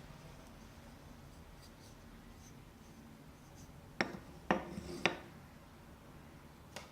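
Three sharp, light knocks about half a second apart, then one fainter click near the end: wooden toy pieces knocking together.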